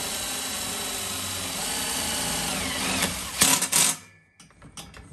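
DeWalt cordless drill running steadily as it drives a screw through a metal clip into the steel gate frame. It gives a short, louder burst a little after three seconds, then stops about a second before the end, followed by a few faint clicks.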